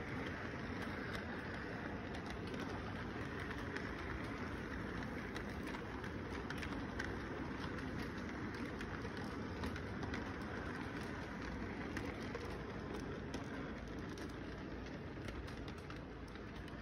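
Toy train running past close by: a steady rolling rumble with frequent light clicks from the wheels on the track, easing off near the end as the train moves away.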